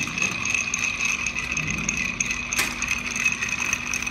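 Bar spoon stirring ice in a glass mixing glass: a steady, quick rattle and clink of ice against the glass, with one sharper clink about two and a half seconds in.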